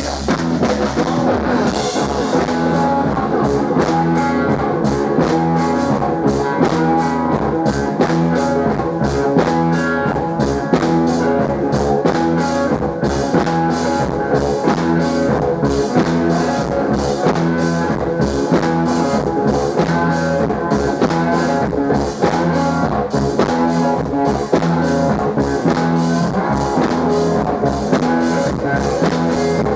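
Live blues-rock band playing an instrumental passage: electric slide guitar over a drum kit keeping a steady, driving beat.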